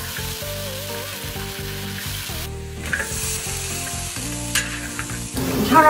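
Meat and vegetables sizzling in a large iron wok over a wood-fired stove, with a spatula stirring through them.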